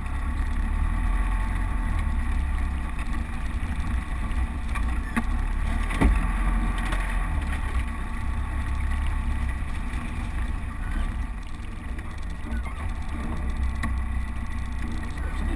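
Land Rover Defender driving slowly along a rough, overgrown lane, with a steady low rumble from the engine and the running gear over the track. A single knock about six seconds in.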